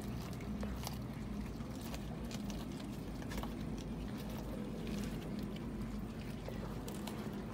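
Cats chewing raw fish, with small irregular wet clicks and crunches. A steady low hum runs underneath.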